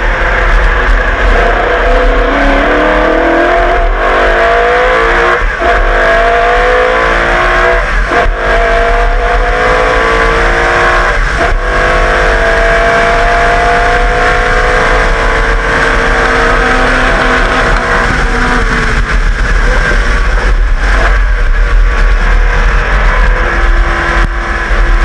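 Holden V8 racing engine of a Group A Commodore touring car accelerating hard, its pitch climbing through the revs and dropping back at each of several gear changes, then a long steady pull before the driver eases off near the end.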